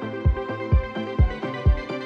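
Background electronic music with a steady kick-drum beat, about two beats a second, under sustained synth tones.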